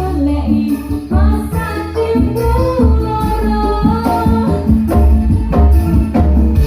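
Live band music with a steady beat: an electone keyboard carrying the melody over bass and jingling, tambourine-like percussion.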